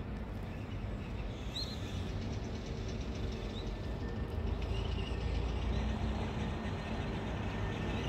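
Low, steady rumble of distant city traffic, slowly growing louder, with a few short bird chirps over it.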